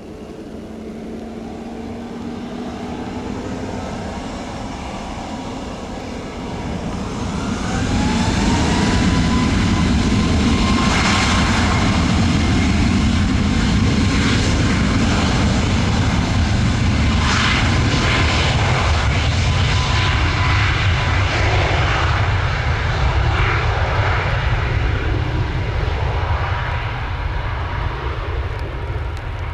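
Boeing 737 MAX 8-200's CFM LEAP-1B jet engines spooling up to takeoff thrust: a rising whine about seven seconds in that settles into a steady tone, under a loud crackling jet roar that eases slightly near the end.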